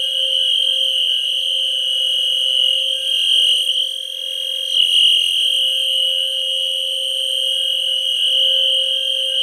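Wheelock fire alarm appliances sounding together on continuous: a low-frequency sounder gives a steady low tone (the 520 Hz alarm tone) under a high, piercing horn tone. A brief click comes about five seconds in.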